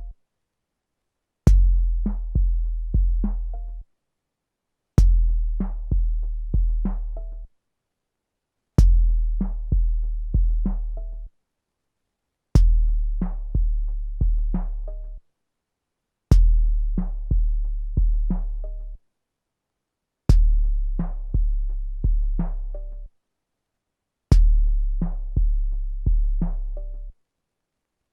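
A 12-bit SP-1200 sampler playing one short drum phrase over and over, about every four seconds. Each pass opens with a sharp click, followed by a run of deep, decaying bass-drum hits with a few lighter taps, then about a second of silence.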